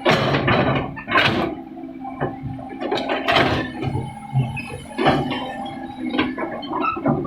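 Komatsu excavator running with a steady hum, overlaid by irregular clanks and knocks of metal, several to a second.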